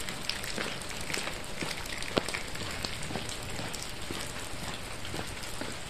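Steady rain falling: an even patter of drops, with scattered sharper drop ticks.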